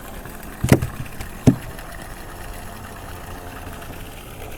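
Two sharp knocks about three-quarters of a second apart, over a steady low rumble.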